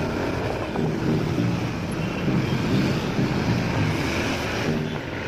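Road noise from riding a motorbike or scooter through city traffic: the bike's engine and passing vehicles, with wind buffeting the microphone.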